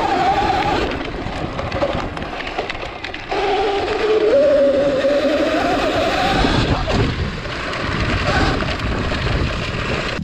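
A 72-volt Sur-Ron electric dirt bike at speed: the electric motor's whine rises and falls with the throttle over heavy wind rush and tyre noise on dirt. The whine fades about a second in, comes back strongly about three seconds in and climbs in pitch, then fades again around seven seconds.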